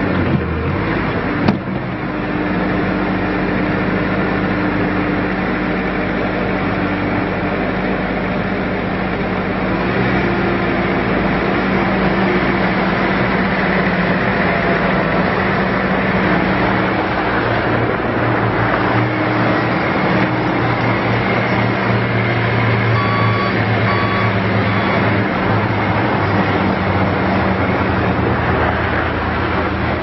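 Bobcat S530 skid steer's diesel engine running steadily as the loader drives and turns, its engine note shifting a few times. Two sharp clanks in the first two seconds, and a few short high beeps later on.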